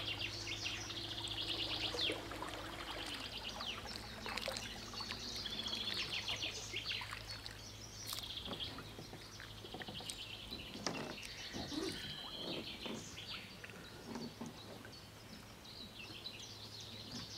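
Birds singing over a thin motor hum from the boat's brushless electric outboard. The hum drops in pitch about three seconds in and stops about six seconds in as the boat is throttled back to coast in. Water then splashes and laps around the hull for several seconds.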